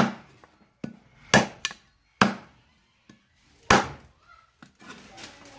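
Heavy steel meat cleaver chopping raw meat on a thick wooden chopping block: four hard chops spaced about a second apart, with lighter knocks between them.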